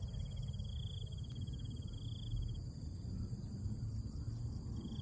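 Insects trilling: a fast pulsed trill that stops about halfway through and starts again at the end, over a steady high-pitched insect drone. A low rumble runs underneath.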